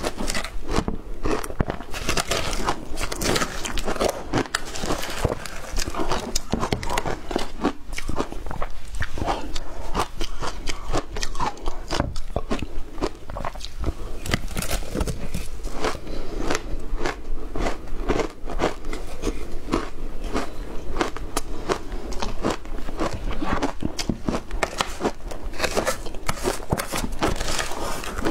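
Shaved ice being bitten and chewed close to the microphone: a dense, continuous crunching and crackling of many small bites, with a metal spoon scraping ice in a plastic tub now and then.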